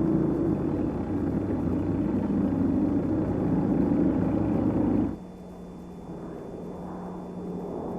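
Heavy engine rumble, dense and low, that cuts off abruptly about five seconds in, leaving a fainter rumble with a steady low hum.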